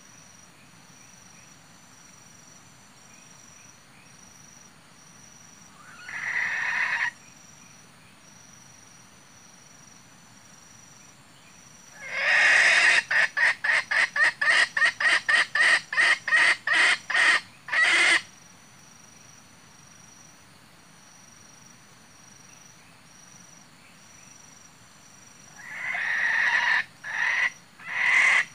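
Red junglefowl clucking: one short call about six seconds in, a fast run of loud clucks from about twelve to eighteen seconds in, and another run starting near the end. A faint high insect chirp repeats about twice a second throughout.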